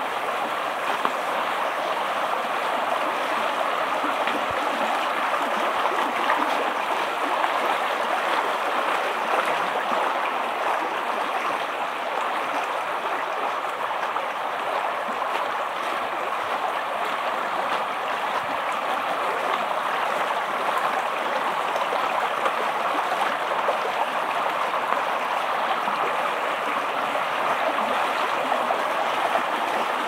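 Shallow stream running over stones, a steady rush of water.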